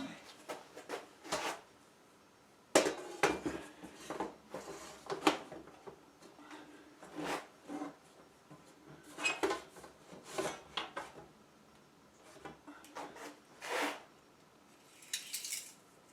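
Metal furnace heat duct pipe being handled and fitted: irregular clanks, taps and scrapes of sheet metal, with a sharper clank about three seconds in.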